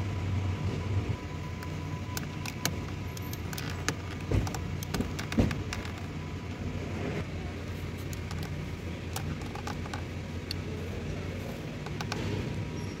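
Scattered clicks and scrapes of a plastic pry tool working against the plastic trim of a steering-wheel switch panel as it is levered out, over a steady low hum.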